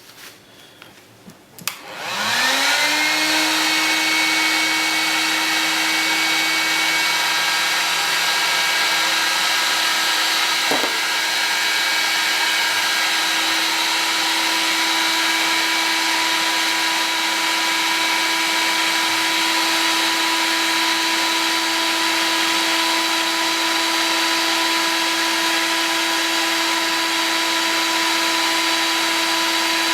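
Heat gun switched on with a click, its fan motor spinning up within about a second into a steady blowing whine, heating acrylic tube for bending.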